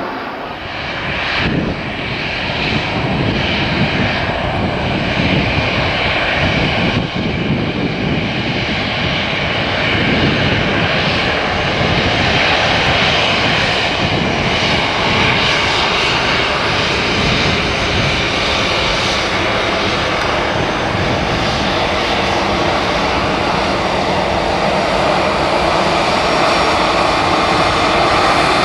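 Jet airliner engines running: a steady rushing noise with a hum, growing gradually louder.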